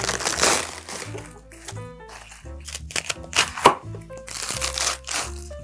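A head of napa cabbage being split apart by hand and cut with a knife, the crisp white stalks crunching and cracking in several stretches, with one sharp crack about three and a half seconds in. Light background music plays throughout.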